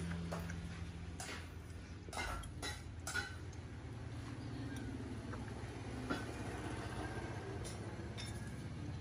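A few short light clinks over a steady low hum.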